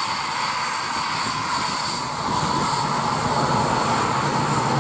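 Dassault Mirage 2000 fighter's jet engine running at low power on the runway: a steady whine over a rumble, with a thin high tone. It grows a little louder from about halfway through.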